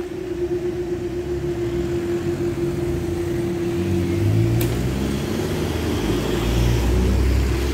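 Railway level crossing warning alarm sounding one steady tone, which stops with a click about four and a half seconds in. A low rumble then grows as the barriers start to lift.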